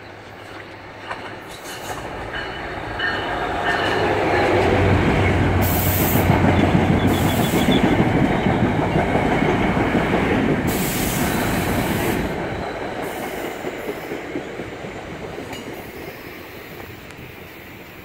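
Locomotive-hauled commuter train approaching, passing close by and fading away: a steady low hum as the locomotive nears, then wheel and rail noise that builds to a peak as the coaches go by and dies down near the end.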